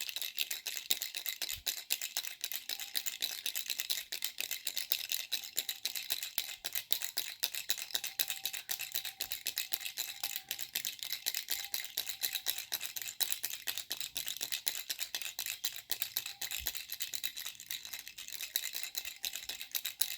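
A baby's rattle shaken continuously, a dense stream of fast, bright clicks and rattling.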